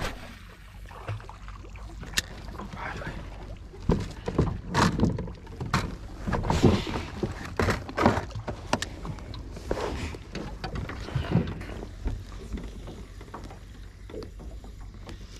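Irregular knocks and clatter of fishing tackle being handled in an aluminium boat, with a spinning rod and reel bumping the hull and gear, busiest in the middle stretch.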